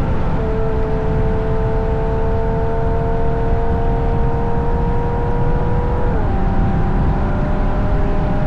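Ferrari GTC4Lusso engine through its Capristo exhaust, cruising at steady revs with a constant drone that drops slightly in pitch about six seconds in, over heavy road and wind noise.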